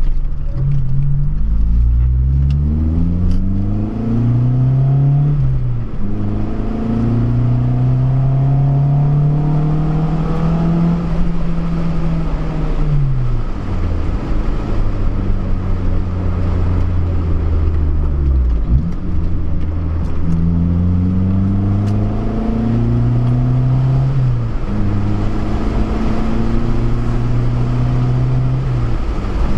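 2002 Honda Civic Si (EP3) engine pulling under load. The revs climb steadily in pitch, then drop away and climb again several times, as with gear changes while driving.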